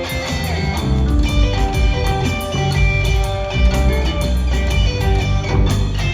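Live rock trio playing an instrumental passage: electric guitar over bass guitar and drum kit, with no singing.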